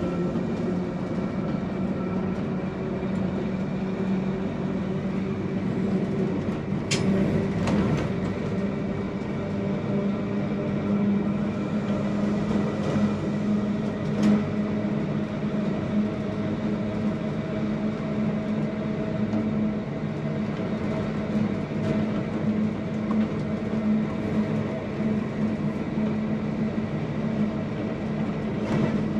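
Manx Electric Railway electric tramcar running steadily, heard from the motorman's platform. Its motors and gearing give a steady hum over the rumble of the wheels, with a few sharp clicks about a quarter of the way through and again near halfway.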